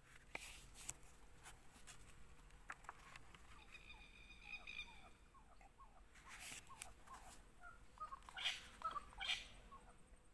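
Faint outdoor bird calls and chirps, with brief papery rustles as sketchbook pages are turned by hand.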